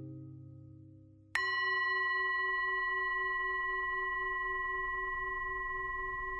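A low held tone fades away, then a bright bell-like tone is struck about a second in and keeps ringing, with a slow pulsing in its lowest note.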